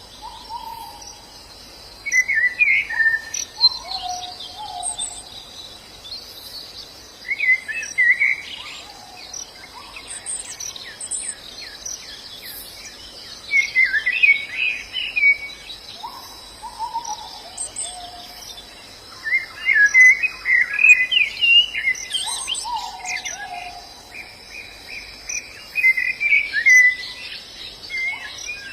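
White-eyes singing in bursts of fast twittering phrases every few seconds, over a steady high insect drone, with short lower whistled notes that fall in pitch.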